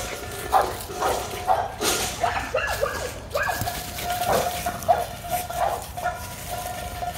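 American Pit Bull Terrier puppy giving repeated short, high yips and barks while playing, with a longer held whining note near the end. Dry fallen leaves crackle under its paws and the ball.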